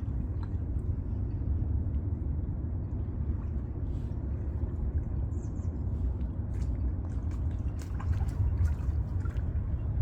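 Steady low rumble of wind on the microphone, with scattered small clicks and faint watery sounds over the last few seconds, as a creek chub is handled and hooked for bait.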